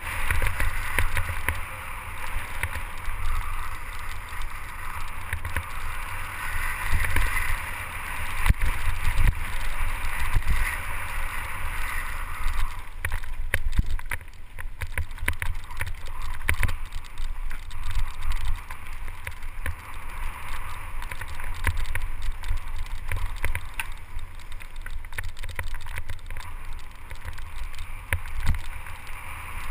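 Mountain bike descending a rocky dirt singletrack, heard from a helmet camera: constant wind buffeting on the microphone, with tyre noise on dirt and frequent rattles and knocks as the bike rolls over rocks and roots.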